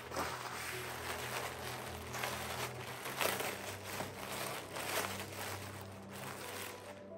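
Irregular rustling and crinkling handling noises that swell and fade every half second or so.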